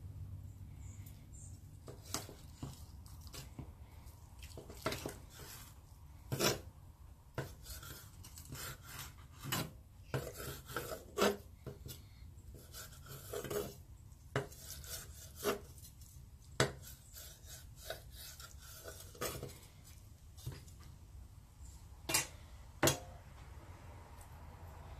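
Knife and cutlery clinking and scraping against a plate or board at irregular intervals while the grilled steak is cut, with a few louder sharp clicks near the end.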